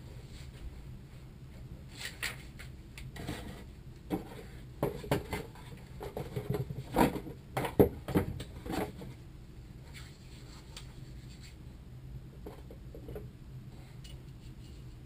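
Small metal parts and tools clinking and clattering as they are handled and rummaged through in a box, busiest in the middle with one sharp clink the loudest, over a steady low hum.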